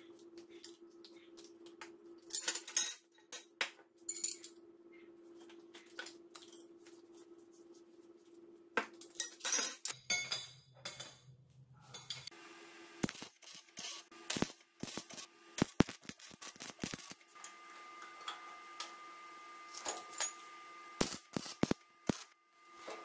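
Steel tubes clinking against each other and the floor as they are handled. Later comes the crackle of arc welding, with many sharp snaps, as the tube frame is welded.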